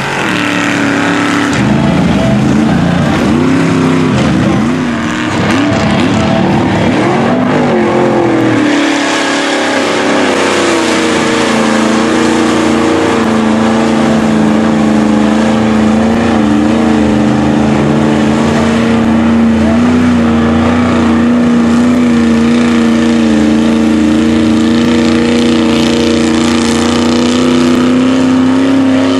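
Mega mud truck's engine under hard throttle as it churns through a mud bog. The pitch rises and falls over the first several seconds, then holds at high revs in a steady drone for the rest.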